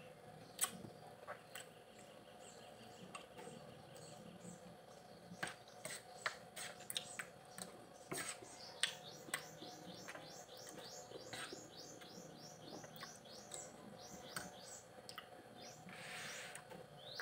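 A person eating, with scattered sharp clicks and taps. From about halfway, a bird chirps in a quick run of repeated short falling notes, about four a second, for some seven seconds.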